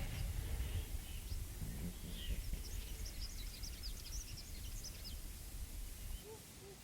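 Outdoor ambience: a steady low rumble with small birds chirping high and quick in the middle. The rumble drops away near the end.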